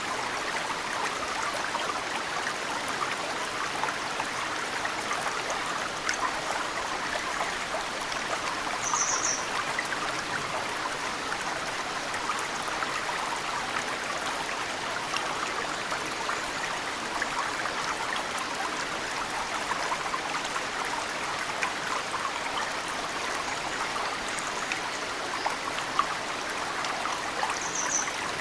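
Mountain stream babbling steadily, with drops of snowmelt pattering into the water. A bird gives a brief high chirp twice, about nine seconds in and again near the end.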